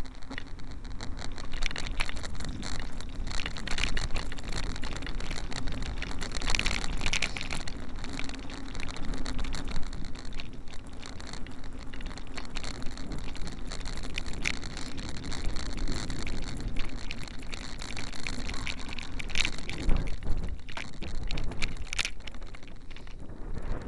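Road and wind noise picked up by a loosely mounted 808 #3 keychain camera on a moving vehicle, with a steady low hum under it. Frequent crackles and knocks come from the camera shifting on its loose mount.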